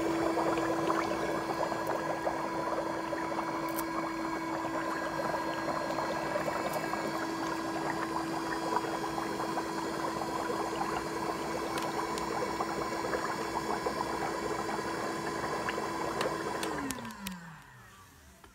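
Electric foot spa running: its motor hums steadily while air bubbles fizz and crackle through the soapy foot bath. About 17 seconds in it is switched off, and the hum falls in pitch as the motor winds down and the bubbling stops.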